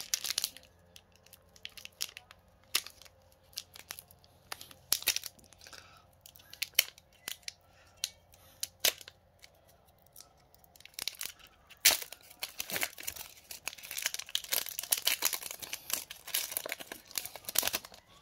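Foil Pokémon booster pack wrapper being crinkled and torn open: scattered sharp crackles at first, turning into a denser run of crinkling and tearing about eleven seconds in.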